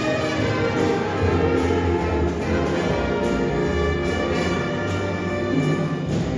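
Jazz band playing a blues number, with brass prominent in the ensemble sound.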